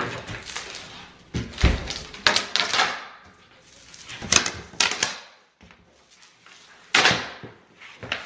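Large cardboard shipping box being handled and opened: a series of about five thumps and scrapes of cardboard, the loudest thump about a second and a half in.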